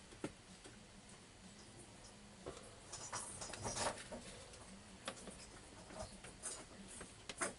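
Faint, scattered clicks and short rustles, busiest around three to four seconds in.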